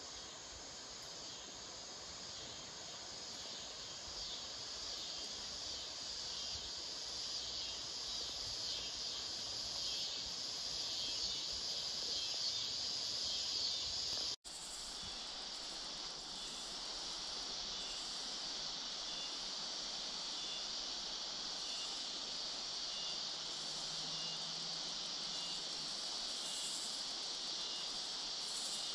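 Steady chorus of insects chirping in a high, continuous band, with a sudden break about halfway through after which the chorus carries on a little smoother.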